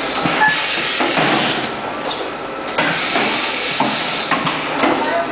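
Bottle packaging line running: conveyor and sealer machinery making a steady clatter of small plastic bottles and moving parts, with several sharp knocks at irregular intervals.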